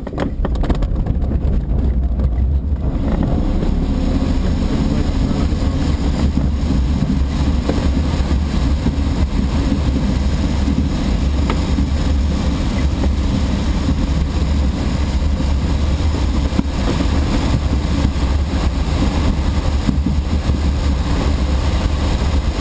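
Steady loud rush of airflow and low rumble inside the closed canopy of a DG-1000 two-seat glider during its launch and fast climb, starting abruptly as the ground run begins.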